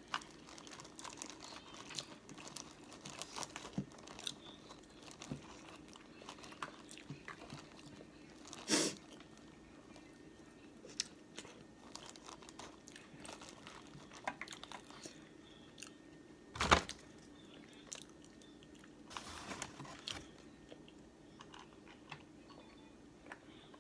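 Close-miked eating of a seafood boil: wet chewing, crunching and biting, with many small clicks and two loud sharp snaps, about nine and seventeen seconds in.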